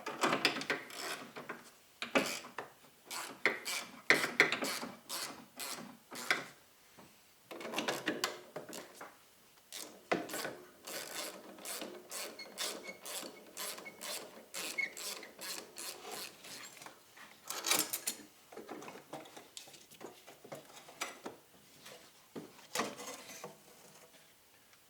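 Hand tools loosening hose clamps and pulling an intercooler pipe from a Ford 6.0 L Power Stroke diesel: irregular ratchet clicks, metal clinks, and scraping and rubbing as the pipe and its rubber boots are worked loose, with short pauses between bursts.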